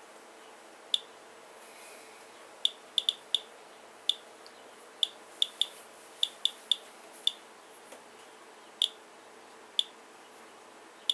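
Geiger counter clicking at random intervals, about fifteen sharp clicks in eleven seconds, as it counts radiation from a rainwater sample.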